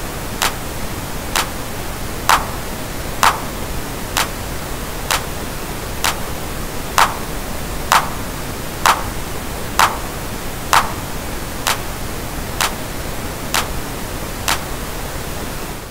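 Steady pink noise with a clap sample hitting about once a second on top of it. The clap's EQ cut is switched in and out, so some hits carry a piercing midrange ring that the others lack.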